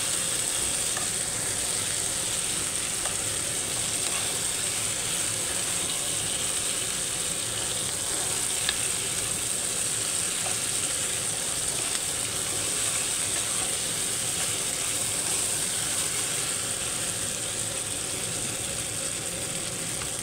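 Minced meat and vegetables frying in oil in a non-stick pan, a steady sizzle, while a metal spoon stirs and scrapes through the mixture with occasional light clicks against the pan.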